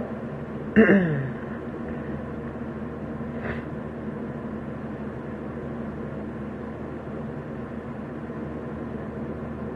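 A brief vocal sound falling in pitch about a second in, then a steady low hum with faint background noise.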